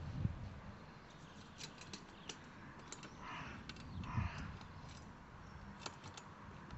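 Small metallic clicks and ticks of bolts and washers being worked by hand into a solar collector's manifold through a steel frame bar, with a couple of dull thumps as the bar and box are handled.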